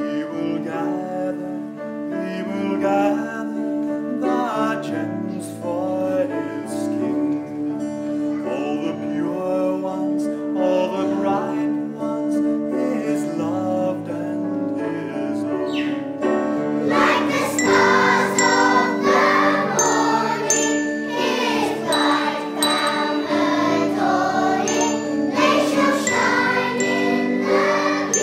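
Music of ringing bells playing a tune over long held notes, with singing voices; it grows fuller and louder about seventeen seconds in.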